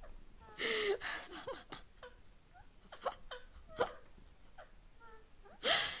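Rose-ringed parakeet giving short harsh squawks and chirps. Two louder squawks, about half a second in and near the end, with quick chirps and clicks between them.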